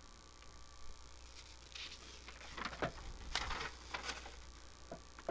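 Quiet room tone with a steady low hum and a few faint, short scattered noises in the middle of the pause.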